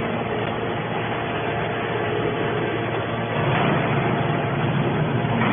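Hydraulic baler running: a steady mechanical drone with a hum, growing a little louder about two-thirds of the way through.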